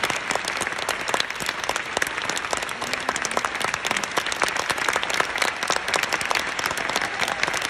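A large theatre audience applauding: steady, dense clapping of many hands.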